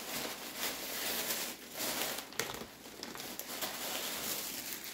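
Plastic packaging of wax melts crinkling as it is handled, in uneven rustles that come and go.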